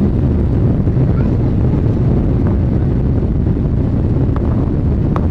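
Steady low rumble of a Boeing 777-300's engines and airflow heard from inside the passenger cabin, with a few faint clicks.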